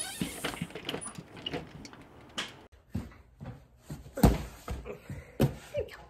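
Glass storm door swinging shut and latching, with scattered knocks and clatter, a loud thump about four seconds in, another about a second later, and a short rising squeak just before the end.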